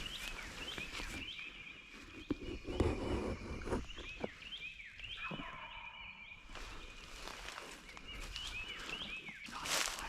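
Small birds chirping in the woods, a short high phrase repeated over and over. Leaves rustle under people shifting and settling, loudest about three seconds in and again just at the end.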